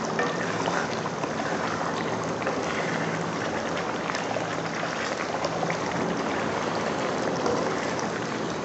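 Thick beef curry bubbling and sloshing in a metal pot as a wooden spoon stirs it, with small scrapes and knocks of the spoon against the pot. A faint steady low hum runs underneath.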